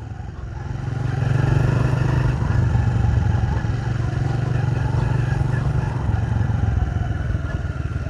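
A vehicle's engine running with a steady low hum as it moves over a stony, broken road, getting louder about a second in.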